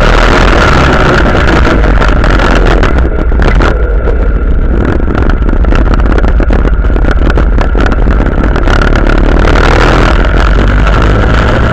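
Quad bike engines running steadily as they ride across loose sand, with wind noise on the microphone.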